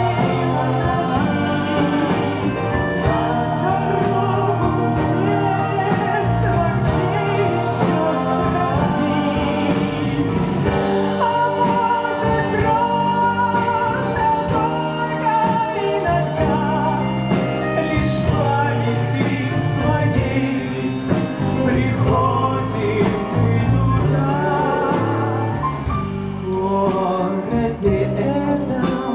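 Live band music: a song played on piano, bayan, clarinet, bass and drums, with singing over it.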